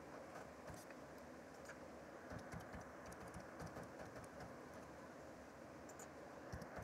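Faint computer keyboard typing: irregular key clicks over a steady low hiss as text and a phone number are entered.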